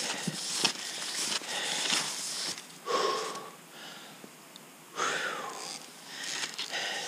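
Cross-country skier's strides swishing and crunching on snow in a steady rhythm, pausing about halfway for two wheezy breaths before the strides pick up again.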